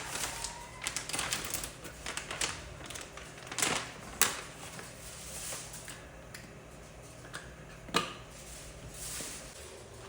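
Irregular clicks, taps and knocks of household items being handled and set down during cleaning, with sharper knocks about three and a half, four and eight seconds in.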